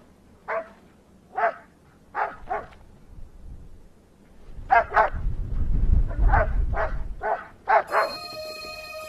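Alaskan malamute barking: about ten short barks in irregular runs, some in quick pairs, with a low rumble under the middle ones.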